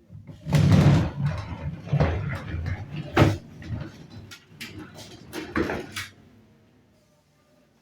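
Irregular knocks, bumps and rattles of things being handled, with four or five sharp knocks among them, dying away about six seconds in.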